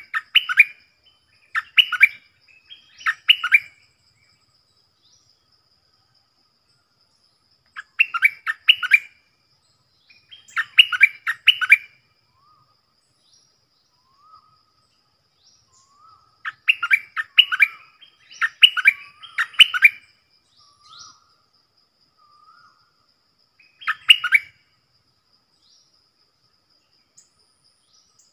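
Stripe-throated bulbul song: short, rapid, bubbling phrases given in groups of two or three, with pauses of several seconds between the groups and soft lower notes in the gaps. A faint steady high tone runs underneath.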